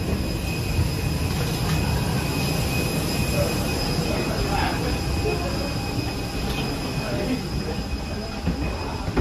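Steady low machinery rumble with a thin, steady high whine: the ground noise of a parked airliner at the jet bridge.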